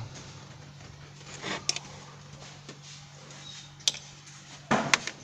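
A few light clicks and knocks from parts and tools being handled in the engine bay, the loudest two close together near the end, over a steady low hum.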